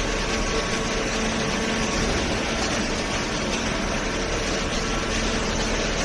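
Hydraulic cardboard baler running: a steady mechanical hum with two faint steady tones.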